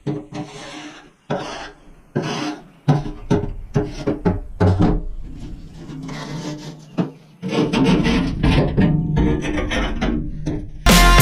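Repeated hand-scraping strokes, rasping against the inside of a commercial smoker while sludge and patina are cleaned off. The strokes come about one a second at first, then faster and denser from about halfway. Loud music cuts in abruptly just before the end.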